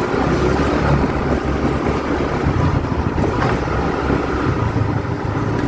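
Steady engine and road noise of a two-wheeler being ridden through an underground parking garage.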